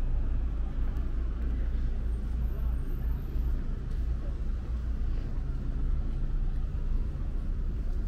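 Steady low rumble of city street traffic, with indistinct voices of passers-by.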